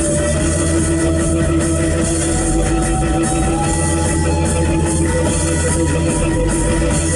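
Instrumental rock music with guitar, no singing, playing at a steady level; one sustained note slowly bends upward in pitch.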